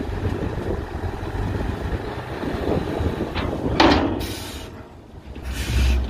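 Diesel engine of a tipper semi-trailer truck running as it creeps forward with its body raised, tipping its load of soil. About four seconds in there is a brief loud screech, followed by short bursts of hiss.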